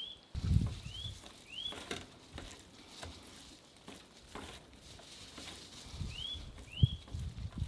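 A small bird chirping: short, quick up-and-down notes, three in the first two seconds and two more about six seconds in, over irregular low rumbles and light taps.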